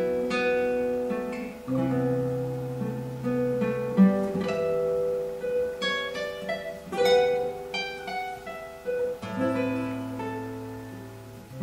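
Solo classical guitar played fingerstyle: plucked melody notes ring and fade over low bass notes held for a second or two.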